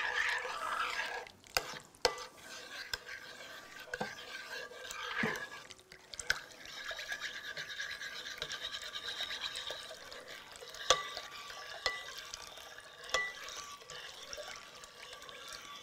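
Liquid poured in a steady stream from a stainless kettle into a bowl of tomato mixture while a metal spoon stirs it, with scattered clinks of the spoon against the bowl.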